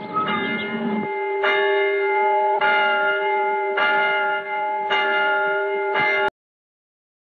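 Church bell tolling: five strokes about a second apart, each ringing on into the next. The sound cuts off suddenly near the end.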